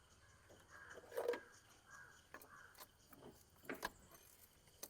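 Near silence: faint background with a short, faint call about a second in and a few soft clicks near the end.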